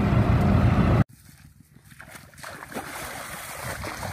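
Auto-rickshaw engine and ride noise inside the cab, cut off abruptly about a second in. The rest is a faint outdoor background with light rustling and small ticks, slowly growing louder.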